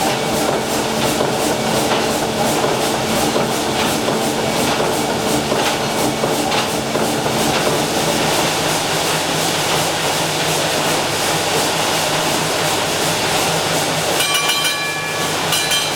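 800 hp triple-expansion marine steam engines running, a steady rhythmic clatter from the moving rods and cranks. Near the end a high ringing tone sounds twice.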